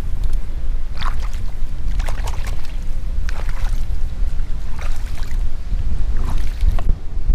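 Water splashing against a boat every second or so over a steady low rumble.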